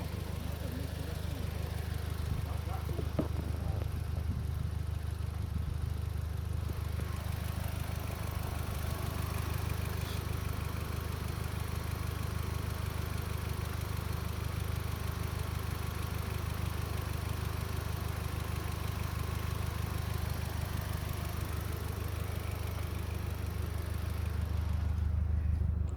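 An engine idling steadily with a low, even drone that stops suddenly at the end.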